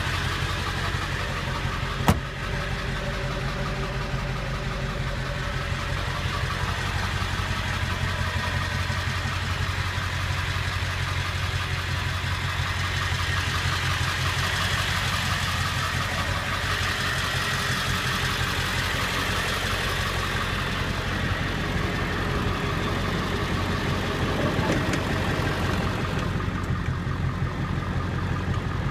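A 1999 Ford F-350 Super Duty's 7.3 L Power Stroke V8 turbodiesel idling steadily, with one sharp knock about two seconds in.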